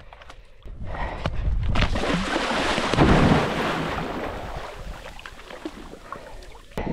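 Water splashing and rushing with wind buffeting the microphone. It swells about a second in, is loudest around three seconds, then fades and cuts off suddenly.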